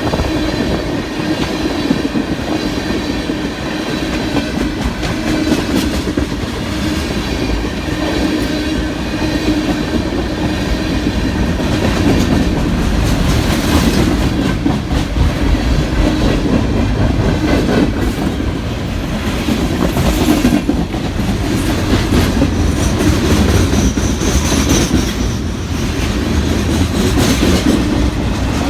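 Train rolling past, its railroad cars' wheels clacking over the rail joints in a steady, continuous rumble.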